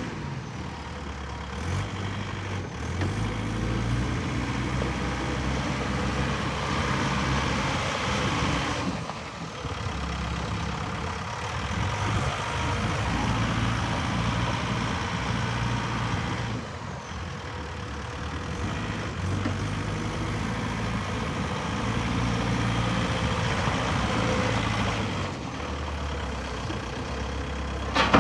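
Volvo BL70B backhoe's 98 hp diesel engine running, its pitch stepping up and easing back down several times as the engine speed changes. A short sharp click comes right at the end.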